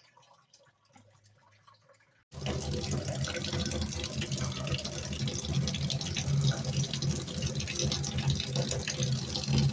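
Water tap turned on about two seconds in and running steadily, the first run of hot water through a newly installed electric tankless water heater.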